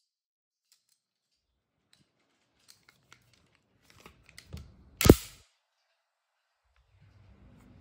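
A few faint clicks and small knocks of the VFC Glock 45 gas-blowback airsoft pistol being handled, then a single sharp shot about five seconds in as its steel slide cycles.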